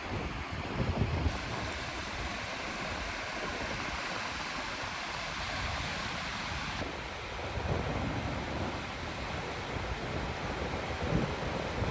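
Steady wash of water at an estuary shore, with wind gusting on the microphone as a low, uneven rumble, strongest in the first second and again from about seven seconds in.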